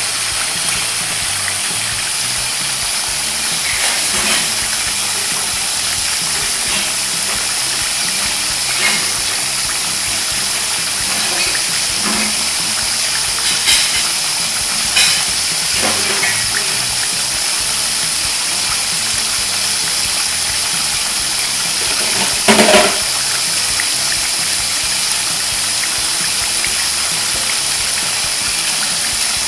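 Raw skin-on chicken pieces deep-frying in hot oil in a deep wok: a steady sizzle with occasional sharp pops of spattering oil, the loudest about 22 seconds in.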